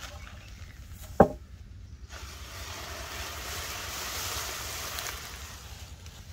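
Large plastic sheet rustling and crinkling as it is lifted and pulled, from about two seconds in. A single sharp knock comes about a second in.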